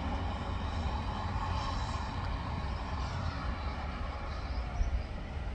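Freight train of covered sliding-wall wagons rolling past: a steady rumble and clatter of wheels on rails.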